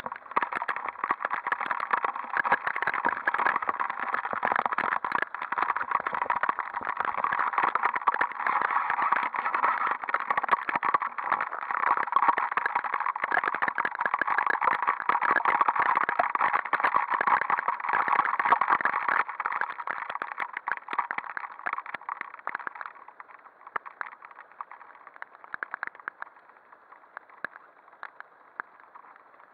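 Motorcycle engine running, heard through the action camera as a harsh, crackly mid-pitched noise, while the bike goes down in the mud. It dies away about twenty-three seconds in, leaving only scattered clicks.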